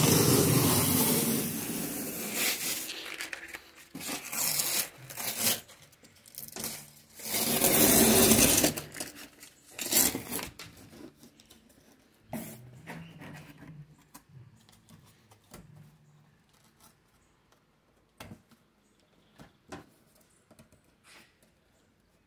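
Packing tape being ripped off a cardboard box by hand: a long loud tearing pull at the start and another about eight seconds in, with shorter rips between. After that come fainter scraping and rustling of the cardboard.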